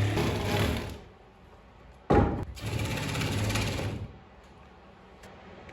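A small motor running in two bursts, with a sharp click just before the second burst. The first burst stops about a second in, and the second runs for about a second and a half.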